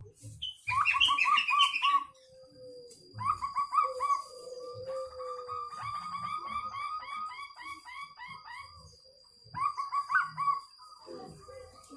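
Zebra dove (perkutut) calling in several bouts of quick repeated cooing notes, with a long run in the middle. A lower drawn-out falling note comes in between bouts. A thin steady high whine sits behind it.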